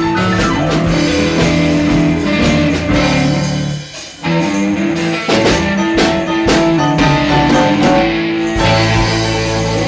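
A band playing guitar-led rock music with a drum kit, with a brief break about four seconds in before the full band comes back in.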